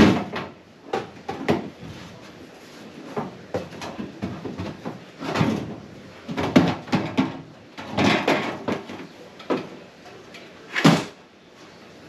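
Irregular knocks, clatters and rustles of interior refrigerator parts being handled and pulled loose as the fresh-food compartment is taken apart. The loudest clunks come at the very start, around the middle and about a second before the end.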